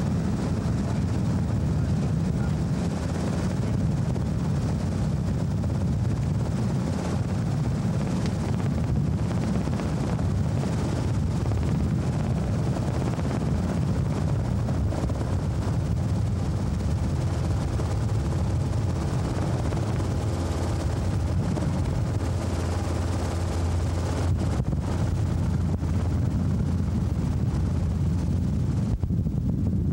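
Robinson R22 helicopter in steady flight, heard from on board: an unbroken low drone of engine and rotor that holds level throughout.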